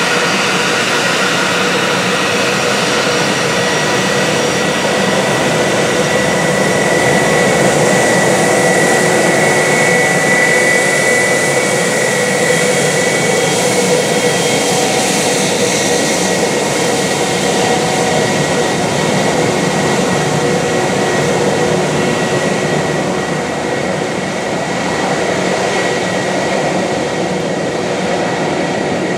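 Airbus A320's twin IAE V2500 turbofan engines running at taxi power as the airliner rolls past: a steady jet whine over a hiss, a little louder about a third of the way in.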